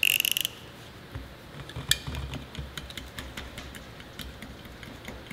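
A box cutter's blade slider ratchets out in a quick run of clicks at the start. Then come faint scraping and scattered light clicks as the blade cuts at the rubber base of a tyre valve stem.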